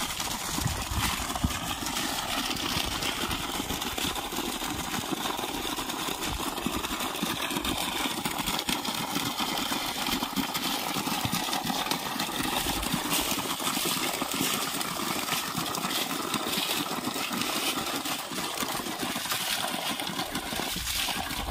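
A steady stream of water gushing from a solar submersible pump's outlet pipe and splashing onto dry leaves and bare ground.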